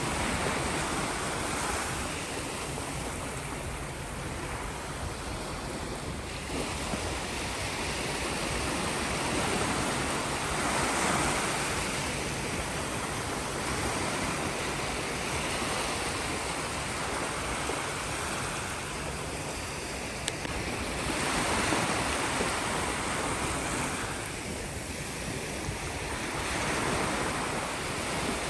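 Sea waves washing onto a shore, the surf swelling and falling back in slow surges every several seconds.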